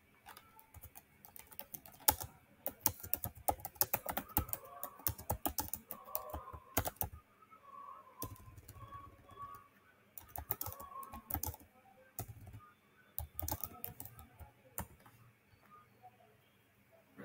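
Typing on a computer keyboard: quick runs of keystrokes for several seconds, a pause, then further bursts of clicks.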